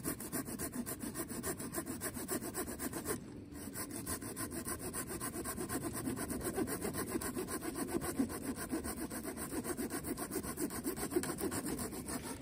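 Small hand saw cutting through a dead wooden branch in quick, even back-and-forth strokes, with a short pause a little after three seconds in.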